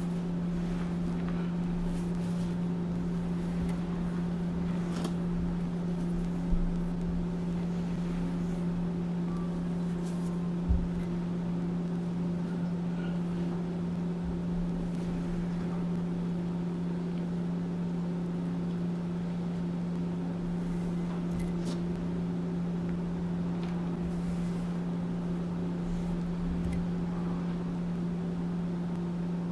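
Soft crunching and rustling of powdered gym chalk squeezed and crumbled by hands in a stone mortar, over a steady low hum that is the loudest sound throughout. There are two light knocks, about six and eleven seconds in.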